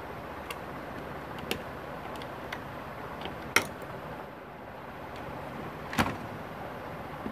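A few sharp clicks and knocks from tools or parts being handled, over a steady background hiss; the loudest knocks come about three and a half and six seconds in.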